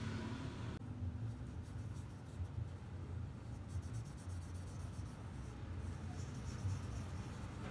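Felt-tip board marker rubbing across paper in quick back-and-forth strokes, filling in a solid black area. The strokes begin about a second in, over a steady low hum.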